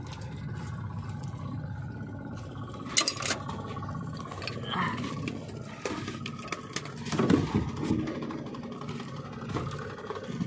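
Small engine of an outrigger fishing boat running steadily, with a few knocks and thuds of gear being handled on deck about three seconds in and again around seven seconds.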